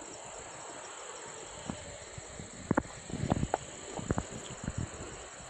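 Steady, high-pitched insect chorus, with footsteps knocking and scuffing on loose stones of a rocky trail starting a little under three seconds in.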